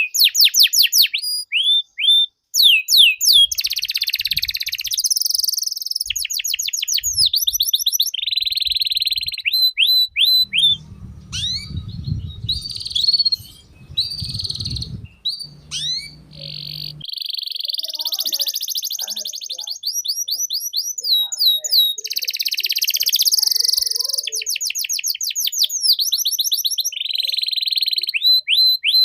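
Domestic canary singing a long, continuous song of rapid repeated trills, sweeping whistles and rolls. A low rumble runs under the song from about ten to seventeen seconds in.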